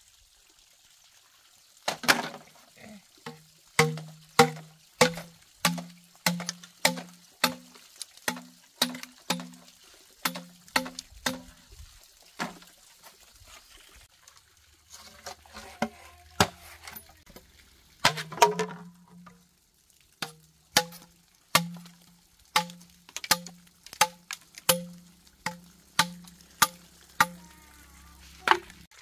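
A curved machete chopping into a green bamboo pole: a steady run of sharp, hollow knocks, about two a second, each ringing briefly with a low note from the hollow stem. The chopping stops for a few seconds midway and then starts again.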